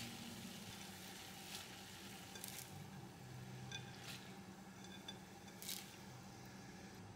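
Faint, steady bubbling of water at a rolling boil in a pot, with a few short splashes and knocks as a handful of bean sprouts is dropped in and pushed under with wooden chopsticks to blanch.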